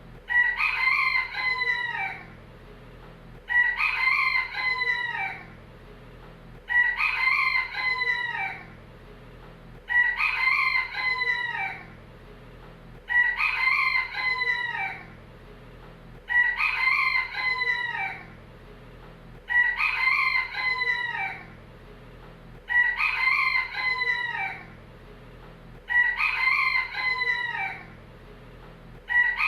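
Rooster crowing the same cock-a-doodle-doo over and over, one crow about every three seconds, each lasting about two seconds.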